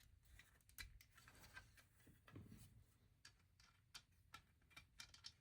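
Faint, irregular clicks and taps of small plastic LEGO pieces being handled and pressed together while wheels are fitted onto the model.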